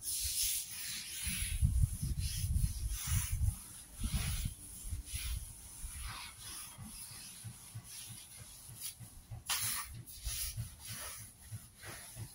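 Long-handled floor scrubber scraping in irregular strokes across a wet stone step, with dull low thumps in the first few seconds.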